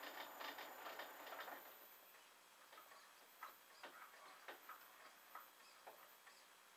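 Clarke CL500M mini lathe running with a fast, even clatter of about five clicks a second, which dies away about two seconds in. A few faint, scattered clicks follow.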